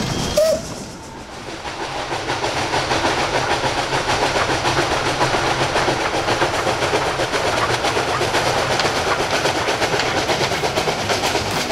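Steam locomotive 423.0145, a ČSD class 423 tank engine, working a goods train: a dense steam exhaust with the clatter of wheels and wagons. A short high squeal comes about half a second in, then the sound drops briefly and builds back up as the working locomotive draws nearer.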